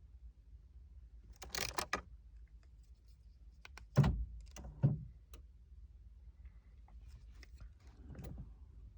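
Car keys jangling briefly, followed by two dull thumps about a second apart.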